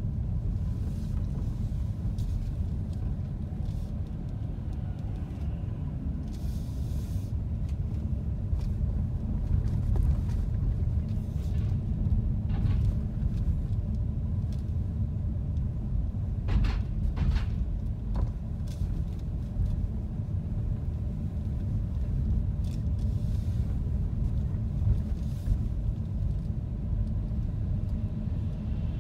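Car driving, heard from inside the cabin: a steady low rumble of engine and road noise, with a couple of short sharp clicks a little past halfway.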